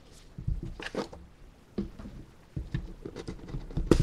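Small cardboard box being handled and its flaps opened: scattered taps, dull thumps and rustles, irregular and short.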